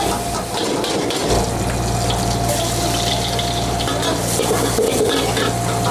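Water running steadily, with a low machine hum that starts about a second in.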